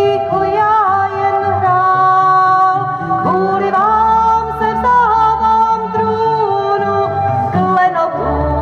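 A woman singing a song from a stage musical, holding long notes over instrumental accompaniment.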